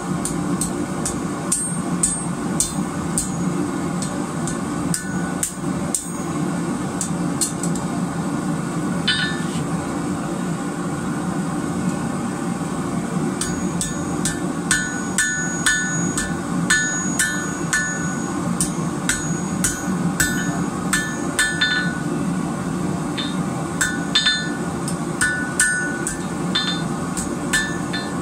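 Hand hammer striking hot rebar held in tongs on an anvil, each blow a sharp metallic clang with a brief ring. The blows come in runs of about two a second with short pauses between, over a steady low hum.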